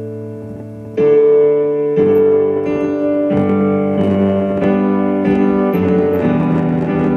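Piano music with no singing: a held chord fades away, then about a second in a louder new chord is struck, followed by further chords every second or less.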